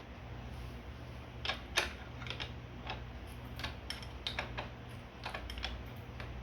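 Scattered light clicks and taps, about a dozen at irregular intervals, from a crank puller and tools being handled and threaded on a bicycle crank arm, over a faint steady low hum.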